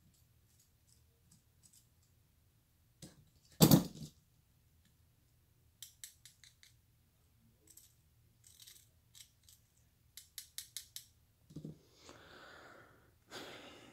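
A knife cutting and prying apart a bottle rocket's cardboard and paper casing: scattered sharp clicks and snips, a loud knock about four seconds in, quick runs of ticks later on, and paper rustling near the end.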